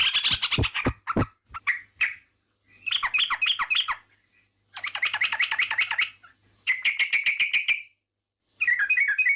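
Yellow-vented bulbul (trucukan) singing in about five short phrases of quick, bubbling chattering notes, with brief pauses between them. Sharp clicks are mixed in during the first second or so.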